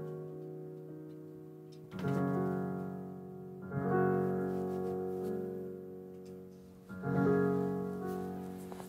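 Slow solo piano music: three chords struck about 2, 4 and 7 seconds in, each left to ring and fade.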